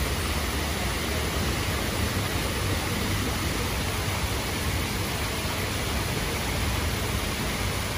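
Water streaming steadily down a lit water wall, a continuous even splashing hiss.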